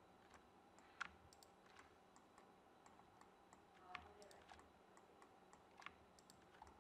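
Faint, scattered clicks of a computer mouse and keyboard over near-silent room tone, the loudest about a second in and about four seconds in.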